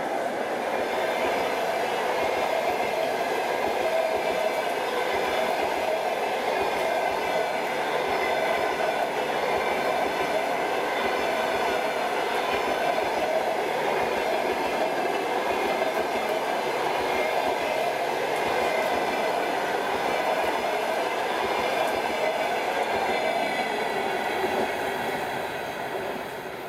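Passenger train coaches rolling past at speed: a loud, steady rush of wheels on rails. It fades over the last couple of seconds as the train draws away.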